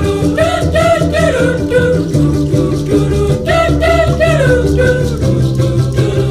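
Music: a song with a sung melody in short phrases over a steady bass line.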